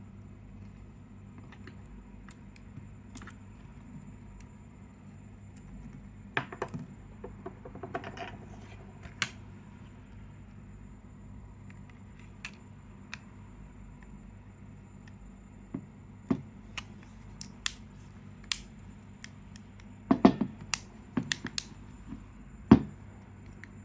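Scattered sharp clicks and taps of small phone parts and connectors being handled and pressed back into place during reassembly, loudest in two clusters, over a steady low hum.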